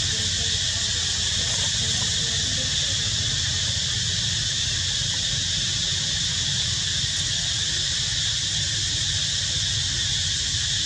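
A steady, high-pitched insect chorus that does not change, over a low, steady rumble.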